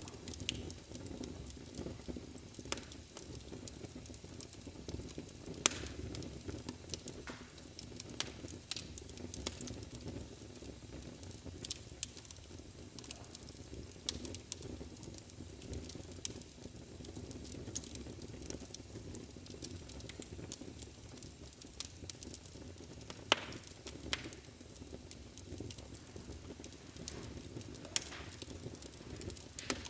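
Wood fire burning in a fireplace: a steady low rumble of flames broken by irregular sharp crackles and pops, the loudest pops about 6, 23 and 28 seconds in.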